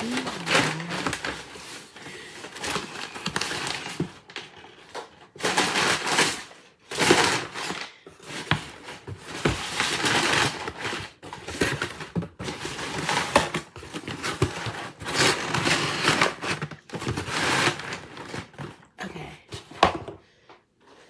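Brown kraft packing paper and a cardboard shipping box being handled and pulled apart, rustling and crinkling in irregular bursts with scattered sharp crackles and knocks.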